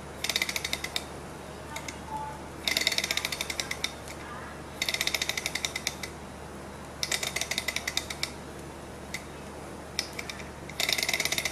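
Small two-piston gamma-type Stirling engine being spun by hand. Five times the flywheel is flicked, and each time the engine turns over with a quick run of metallic ticks lasting a second or so, then stops. The engine is trying to start but is not yet hot enough to keep running on its own.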